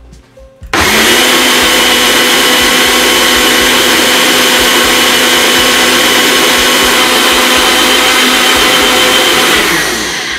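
Ninja Professional personal blender blending milk with soaked almonds and grated white chocolate. The motor starts abruptly about a second in and runs steadily and loudly for about nine seconds. Near the end it switches off, winding down with falling pitch.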